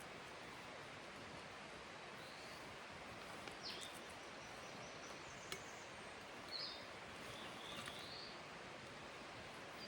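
Quiet outdoor ambience: a steady faint hiss with a few short, high bird chirps scattered through it and a couple of light clicks.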